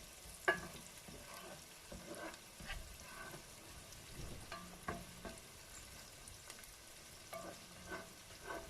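Chopped tomatoes frying with sautéed onion and garlic in a pan, a faint steady sizzle as they cook down to release their juice. Scattered light taps, about a dozen, are spread through it.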